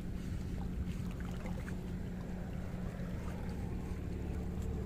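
Steady low engine hum with an even, unchanging pitch.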